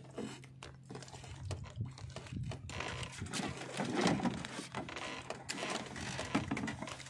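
Small clicks and rustles of nylon handline and a hook being handled, over a steady low hum.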